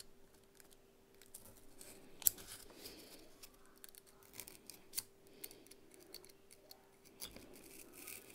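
Hobby knife blade cutting into a 5 mm Styrodur (extruded polystyrene foam) sheet: faint, intermittent scratching and squeaking as the blade is drawn through, with two sharper clicks.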